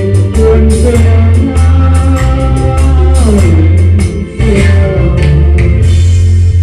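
A man singing a Sinhala song into a handheld microphone over a recorded backing track with a steady bass and drum beat; a long held note slides down about three seconds in.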